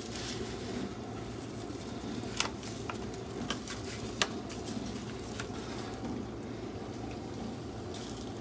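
Dry rub shaken from a plastic shaker bottle onto racks of ribs in a foil pan, with a few sharp clicks and taps in the middle, the loudest about four seconds in, over a steady low hum.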